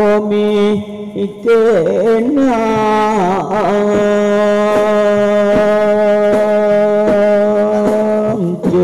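A man's voice chanting in a melismatic style. It has wavering ornaments at first, then holds one long note for about five seconds, which breaks off near the end.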